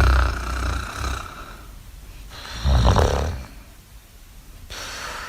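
Snoring in sleep: a loud snore right at the start, a second loud snore about two and a half seconds in, then a quieter breath near the end.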